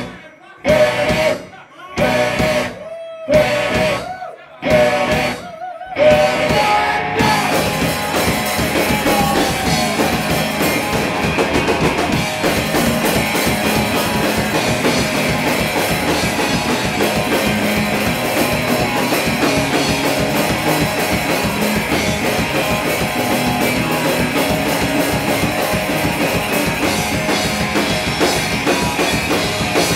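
Live rock band with distorted electric guitars and a drum kit playing loud. It starts with a stop-start riff of short chord hits, about one every second and a quarter with brief silences between, then breaks into continuous full-band playing about six seconds in.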